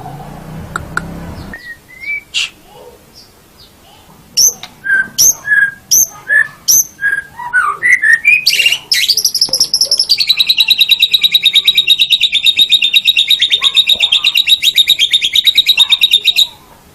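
White-rumped shama (murai batu) singing: a run of loud, sweeping whistled notes, about two a second, then a long, fast rattling trill of several seconds that cuts off suddenly.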